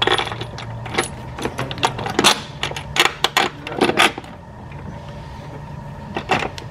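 Metal parts clinking and clattering in quick, irregular knocks as a brake master cylinder on a booster-delete plate is worked into place against the firewall. The knocks come thickly for about four seconds, pause, and start again near the end, over a low steady hum.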